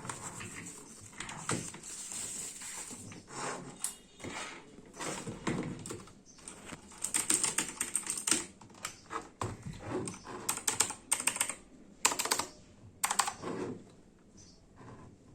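An HP GK320 mechanical keyboard with blue switches being handled, its keys clicking and clattering in short, irregular runs.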